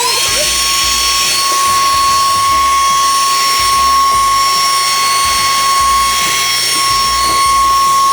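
Xiaomi Deerma VC25 Plus handheld cordless vacuum cleaner running: a steady high-pitched motor whine over the hiss of rushing air.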